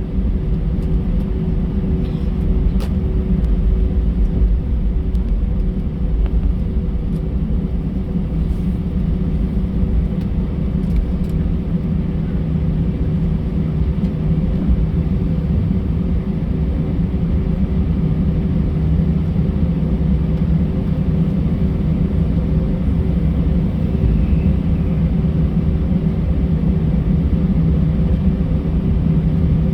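Cabin noise inside an Airbus A320 on the taxi: the engines' steady hum at idle thrust over a constant low rumble.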